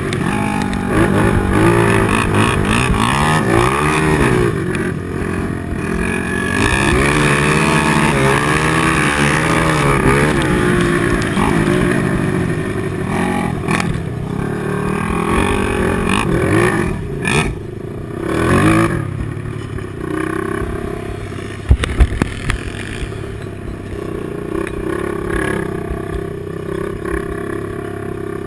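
Honda TRX450R sport quad's single-cylinder four-stroke engine heard on board, revving up and down with the throttle so its pitch rises and falls again and again, settling to a steadier run near the end. A few sharp knocks come about three-quarters of the way through.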